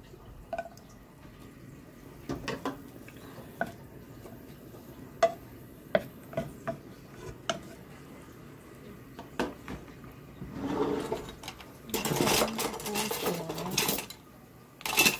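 A wooden utensil stirring sliced garlic in oil in a pot, with scattered light taps and clicks against the pot. About two-thirds of the way through comes a louder stretch of scraping and clatter.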